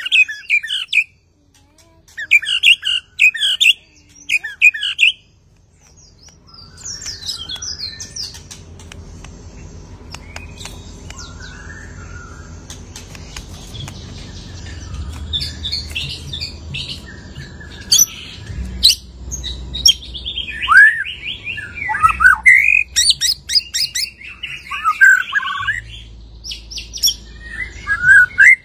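White-rumped shama (murai batu) singing after its moult, pouring out its repertoire in bursts of quick, varied notes and whistles, some sliding down in pitch. The song is sparse for a few seconds, then comes thick and loud through the second half.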